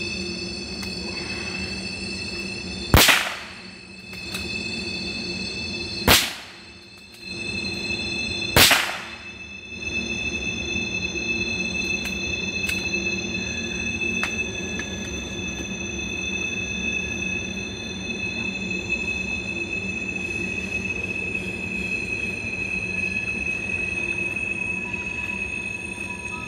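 .22 LR rifle fired three times, the shots about three seconds apart and the first about three seconds in. A passing train's steady high-pitched wheel squeal runs under them.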